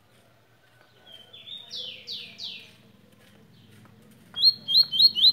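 Small caged songbird singing: a few high, downward-sweeping whistled notes about two seconds in, then a louder quick run of sharp rising chirps near the end.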